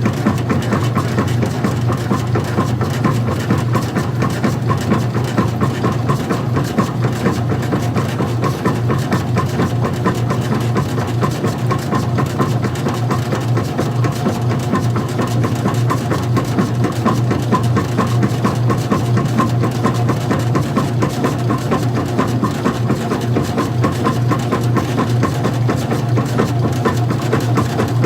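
Old-style front-loading washing machine running, its motor giving a steady low hum with a fast, even rattle over it.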